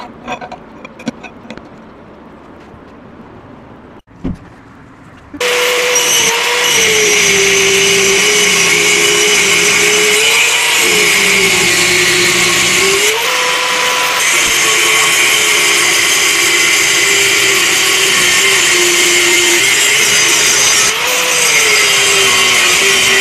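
A few light clinks as steel plates are handled, then about five seconds in an angle grinder with a cut-off disc cuts through steel plate. Its loud whine sags in pitch as the disc bites into the steel and rises again each time the cut eases, several times over.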